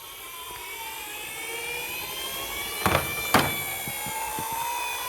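Toy emergency vehicle's electronic siren wailing, a slow tone that falls and then rises again, growing louder, with two sharp knocks about three seconds in.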